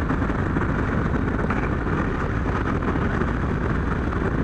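Kawasaki GPZ1100 inline-four engine running steadily under way, mixed with wind noise on the microphone.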